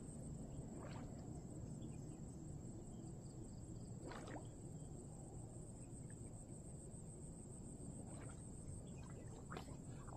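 Quiet outdoor ambience: a faint, steady, high-pitched insect drone over low background noise, with a few soft clicks.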